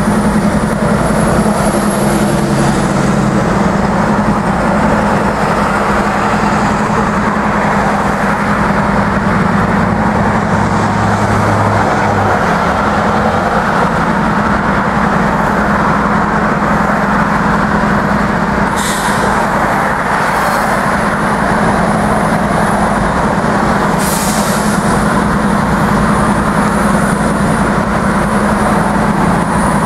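Norfolk Southern GE diesel-electric freight locomotives running with a steady low engine drone, mixed with road traffic including a school bus and heavy trucks. Two brief high-pitched hisses come about two-thirds of the way through.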